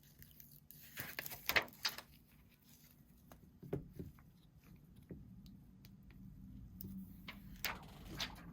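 Scattered light clicks, taps and rustles of hands handling an iPhone and a plastic screen protector, the loudest in the first two seconds.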